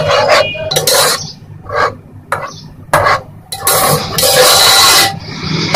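A spoon stirring and scraping through thick tomato-onion masala in a metal cooking pot, in several uneven strokes, with one longer scrape of about a second and a half near the end.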